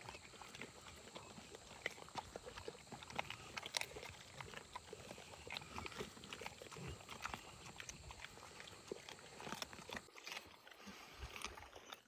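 Mastiff dogs chewing and crunching raw chicken pieces: faint, irregular crunches and clicks of teeth on bone.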